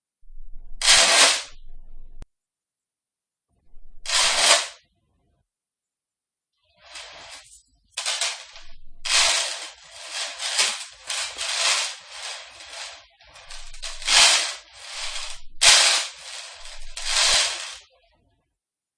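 Metal chains being handled, rattling and clinking. Two separate shakes come about a second in and at about four seconds, then a near-continuous run of rattling from about seven seconds until shortly before the end, with brief pauses.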